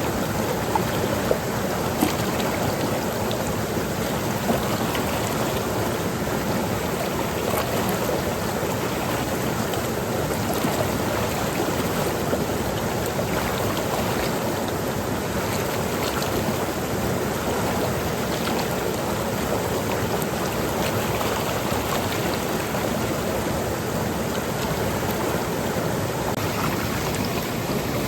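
Seasonal stream running over rocks and pebbles: a steady rush of water with small splashes and trickles.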